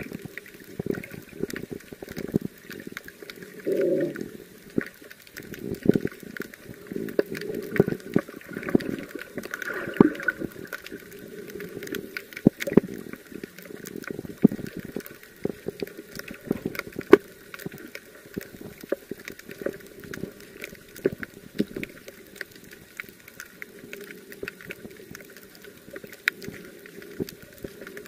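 Underwater sound picked up by a camera in its housing: muffled bubbling and gurgling bursts, loudest in the first ten seconds, over a steady scatter of sharp clicks and crackles.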